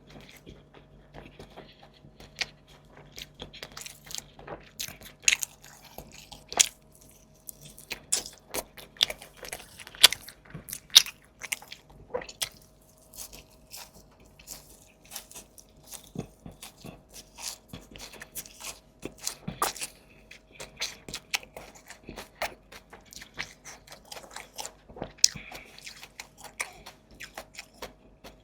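Close-miked eating: a person biting and chewing food with many sharp, irregular crunches and wet mouth sounds.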